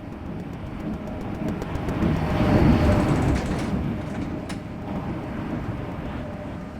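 A vehicle passing by, its rumbling noise swelling to loudest about halfway through and then fading away.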